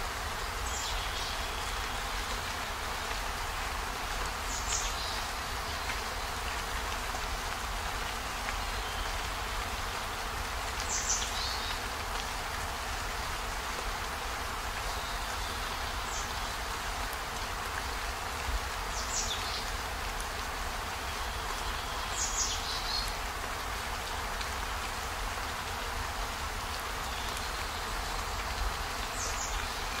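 Steady rain falling, with a bird giving short, high chirps that fall in pitch, about seven of them spread every few seconds.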